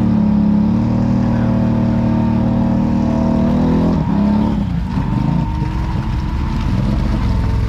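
Off-road vehicle engine held at high revs under load during a tow pull. About four seconds in, the revs drop and the engine runs lower and rougher.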